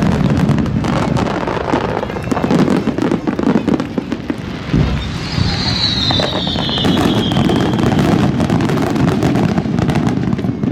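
Fireworks finale: a continuous barrage of shell bursts and crackling with low booms. About five seconds in, a high whistle glides down in pitch over two or three seconds.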